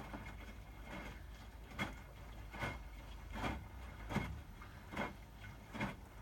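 Hotpoint WMFUG 942 front-loading washing machine tumbling a medium load of towels in its 60° bed & bath wash, with the water still cold. Wet towels and water swish with each turn of the drum, about one surge every 0.8 s, over a steady low hum.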